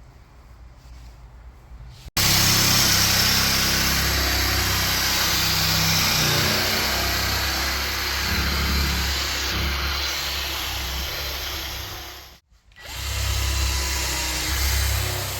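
An electric power tool running steadily, a loud even hiss over a low hum. It cuts in abruptly about two seconds in, stops for a moment near the end, then runs again.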